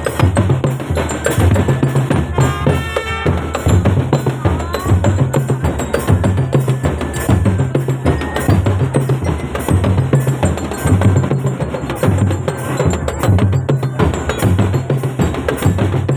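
Marching drum band playing: bass drums keep a steady beat under dense snare and stick strokes.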